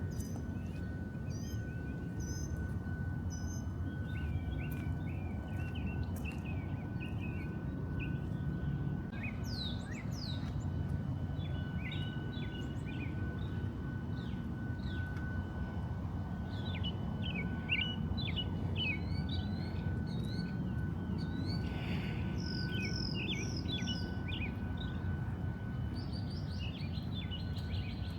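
Several birds chirping and trilling in short, scattered calls over a steady low rumble, with a faint constant high tone throughout.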